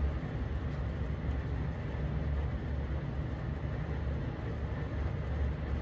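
Steady low rumble with a faint hiss above it, with no distinct events: constant background machine noise.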